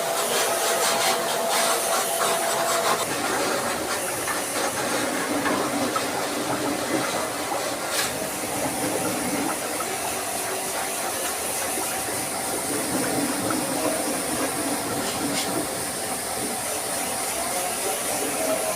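Steady hiss of a pressure-washer water jet spraying an air-conditioner unit during cleaning. A faint motor whine is heard for the first few seconds.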